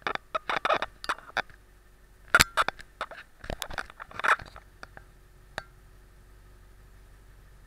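A quick run of clicks, knocks and scraping, the loudest about two and a half and four seconds in, stopping after about five and a half seconds over a faint steady hum.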